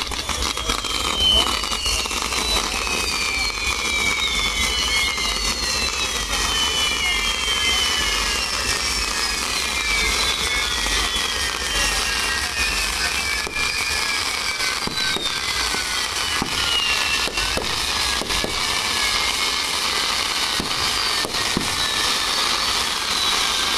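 Pyrotechnic castillo towers burning: a dense, steady hiss of spark fountains with several high whistles overlapping, each sliding slowly down in pitch over a few seconds, and a few sharp cracks.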